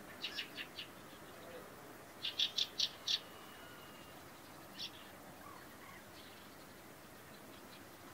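Fieldfare giving its harsh chattering call in short runs of clipped notes: four quick notes, then a louder run of five about two seconds in, and a single note near the five-second mark.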